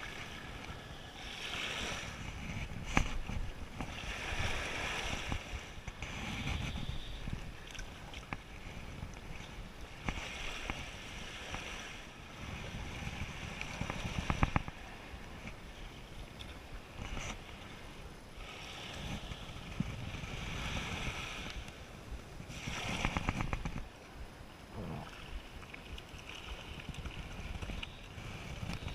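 Surf washing onto a beach in rolling swells, mixed with wind buffeting the microphone.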